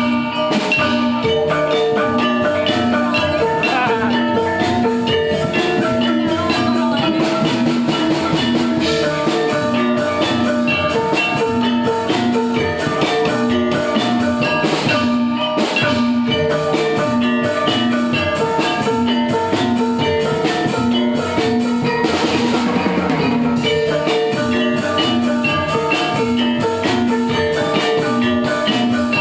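Gamelan-style dance music: tuned metal percussion repeating a melody over steady drumming.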